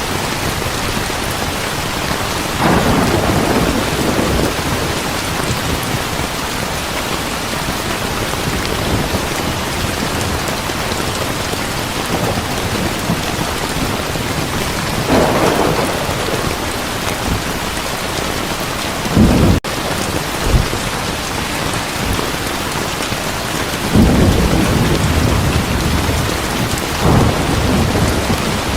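Heavy rain falling steadily, with five rolls of thunder spread through, the sharpest and loudest about two-thirds of the way in.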